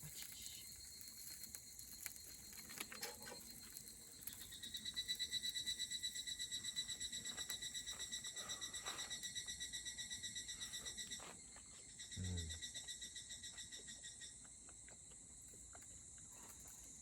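Insects chirping: a steady high-pitched trill throughout, with one insect chirping in a rapid, even pulse of about five chirps a second from about four seconds in until about eleven seconds, then again more faintly. A short low sound comes about twelve seconds in.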